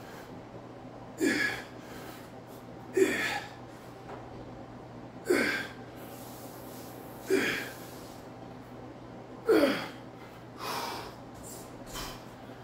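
A man grunting and exhaling hard with the effort of each dumbbell lift. About six short grunts come roughly every two seconds, each dropping in pitch, and the last ones are weaker.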